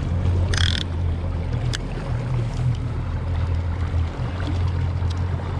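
Suzuki outboard motor running steadily at trolling speed, a low even hum under water and boat noise. A short hiss comes about half a second in.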